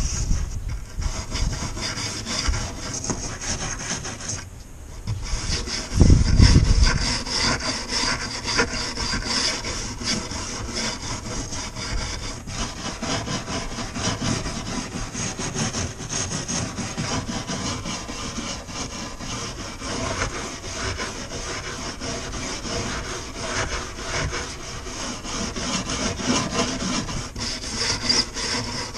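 Hand scraping along a painted window frame in quick, continuous strokes, with a brief low rumble a few seconds in.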